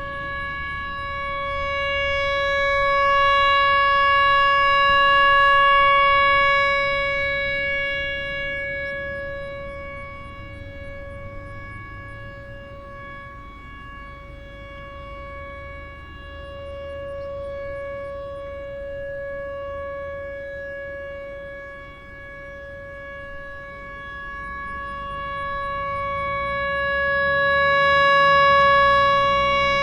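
Whelen Vortex rotating electromechanical outdoor warning siren sounding a steady alert tone of about 560 Hz. Its level swells and fades slowly as the rotating head sweeps toward and away, loudest about five seconds in and again near the end.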